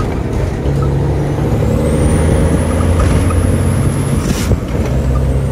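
Heavy truck's Detroit diesel engine pulling under load, with a high whine that rises in pitch. About four seconds in the whine cuts off and the engine note dips briefly, with a short hiss, as for a gear change, and then the engine picks up again.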